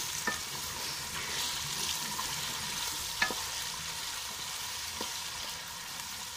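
Sliced taro root sizzling as it fries in oil in a large aluminium pot, stirred with a wooden spatula that knocks against the pot three times, the loudest knock about three seconds in. It is being fried to take away its sliminess.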